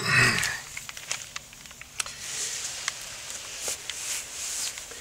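Light handling noises: soft rustling of paper with scattered small clicks and taps, and a brief louder rustle at the start.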